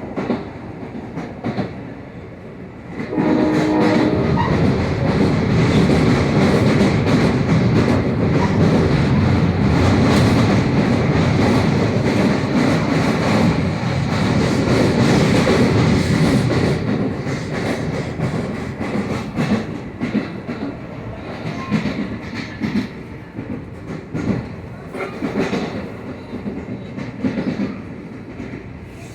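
A train passing, its wheels clattering over the rail joints. It comes in suddenly about three seconds in, stays loud for the next dozen seconds or so, then fades with scattered clicks.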